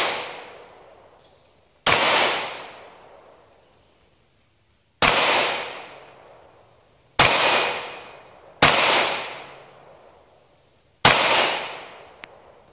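Five single gunshots at uneven intervals of about one and a half to three seconds, each sharp crack trailing off in a long echo.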